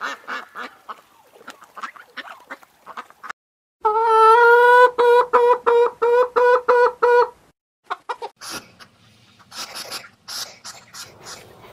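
Farm birds calling: a fast run of repeated calls that fades out, then after a brief break a louder run of evenly pitched calls, about five a second, for some three seconds. Scattered clicks and rustling follow near the end.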